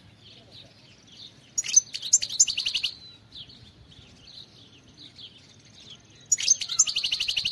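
European goldfinch singing: two loud phrases of fast twittering trills, one about one and a half seconds in and one near the end. Softer twittering notes come between them.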